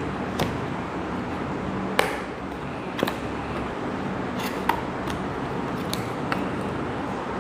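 Handling of a speaker's cardboard box and packaging: a scattered series of sharp clicks and taps, the loudest about two seconds in, over a steady background hum.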